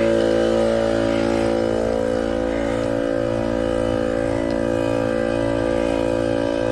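Portable electric air compressor running with a steady, even-pitched hum.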